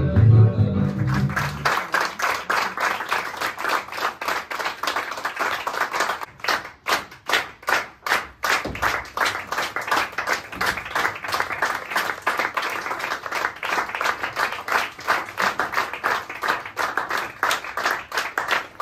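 Guitar music ends about two seconds in, and an audience applauds. For a couple of seconds around a third of the way in, the clapping falls into a steady beat in unison.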